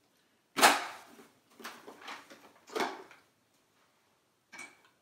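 Plastic clicks and knocks as green plastic wheels are pushed onto the axles of a plastic toy train engine. A loud knock comes about half a second in, then a few smaller clatters, another knock a little before halfway, and a faint click near the end.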